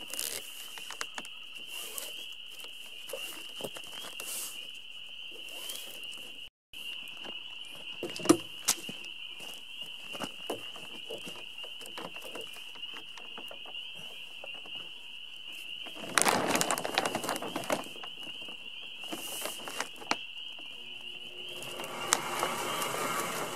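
Hands handling a monofilm windsurf sail and its mast and luff sleeve: scattered clicks and knocks, with a sharp knock about a third of the way in, and two spells of loud plastic crinkling, one past the middle and one near the end. A steady high-pitched trill runs underneath throughout.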